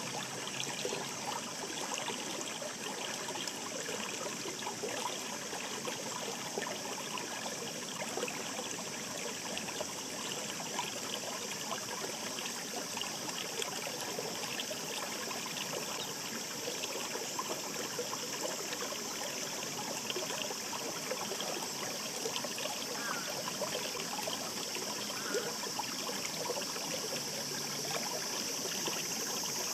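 Shallow mountain stream murmuring steadily, a continuous rush of water full of small splashes and gurgles.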